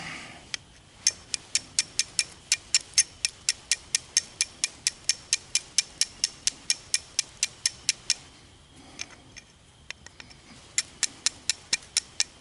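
Carbon steel knife struck against quartz in quick, even strikes, about four a second, to throw sparks onto chaga for a quartz-and-steel fire. After a pause of a couple of seconds comes another short run of strikes near the end.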